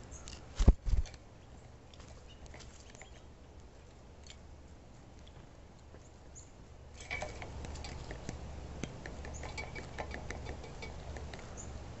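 Two heavy thumps about a second in. From about seven seconds, a rapid, irregular ticking of a downy woodpecker pecking at a caged seed cylinder feeder.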